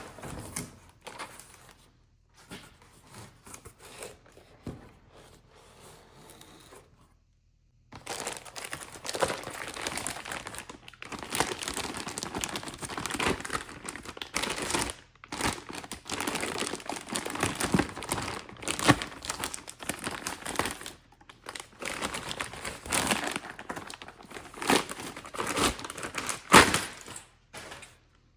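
Packaging wrap being pulled off and crumpled by hand: a few light rustles and clicks at first, then from about eight seconds in near-continuous crinkling and tearing with short pauses and a few sharper snaps.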